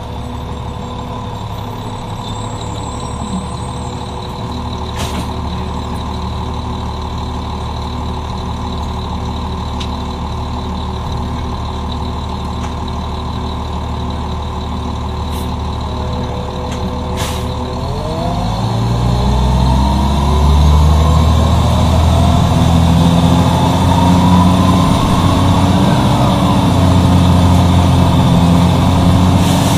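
Cummins M11E diesel engine of a 1996 NovaBUS RTS-06 city bus, with its Allison VR-731RH automatic transmission, running steadily, then about 18 seconds in revving up with a rising whine and getting louder as the bus accelerates. A few sharp clicks sound in the first half.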